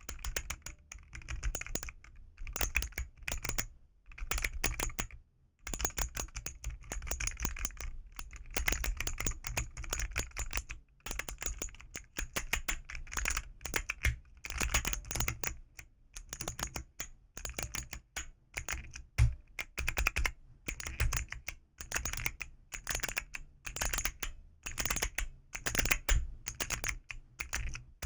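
Mechanical-style keys of a keyboard fidget toy being pressed in quick, dense runs of clacking clicks, with a few brief pauses, the longest about four to five seconds in.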